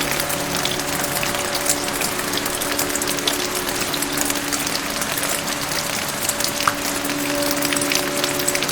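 Steady rain falling, with many individual drops ticking sharply through the hiss. Soft music with a few long held notes sits low underneath.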